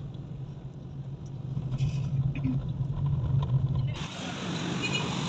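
Steady low drone of a car's engine and tyres heard from inside the cabin while driving. About four seconds in, it gives way abruptly to a steady hiss.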